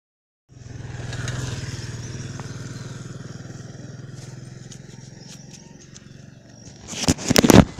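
A steady low drone with a fine rapid pulse that slowly fades, with a few scattered clicks, then loud irregular buffeting and crackling on the microphone near the end as the camera swings about on a moving bicycle.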